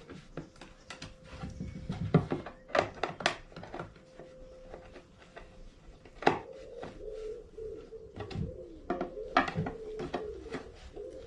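Cam lock fittings being turned and wooden flat-pack drawer panels handled and knocked together, an irregular series of sharp clicks and knocks as the drawer is locked up.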